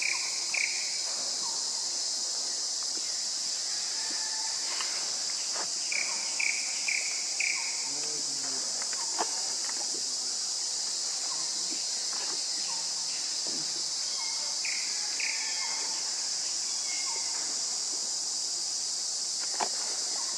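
Steady high-pitched chorus of insects droning without a break. Short chirps come in little runs of two to four over it: near the start, about six seconds in and again about fifteen seconds in.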